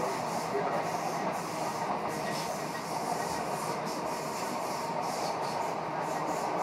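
Steady running noise of a Greater Anglia electric multiple unit at speed, heard from inside the carriage: an even rumble of wheels on rail with a hiss above it.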